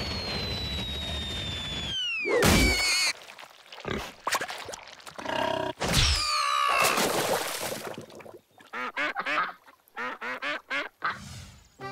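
Cartoon sound effects: a long falling whistle ending in a crash about two and a half seconds in, and another falling whistle about six seconds in. Near the end, cartoon ducks quack in a quick run of short calls.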